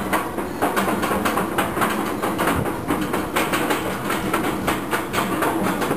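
Bolliger & Mabillard floorless roller coaster train climbing its chain lift hill: the lift chain rattling with a rapid, even clicking, about four clicks a second.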